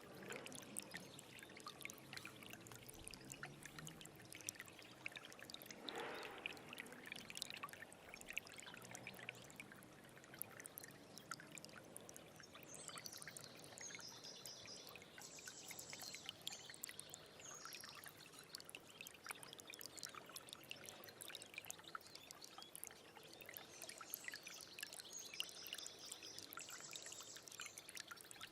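Small stream trickling and splashing over stones, quiet and steady with many small drips. A small bird calls in a high-pitched run of quick notes about halfway through and again near the end.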